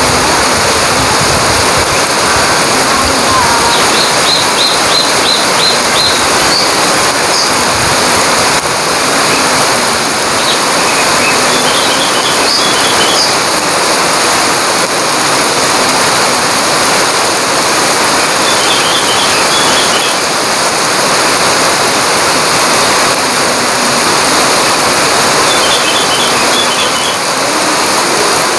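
Heavy tropical rain pouring down steadily on palm fronds, foliage and a dirt road, a dense even hiss. Four times a bird chirps a quick run of high notes over it.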